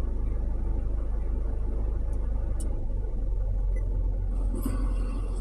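Steady low rumble and hum, with no clear events in it.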